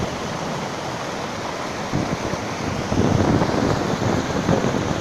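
Steady rush of a mountain waterfall, with wind buffeting the microphone in gusts, strongest about three seconds in.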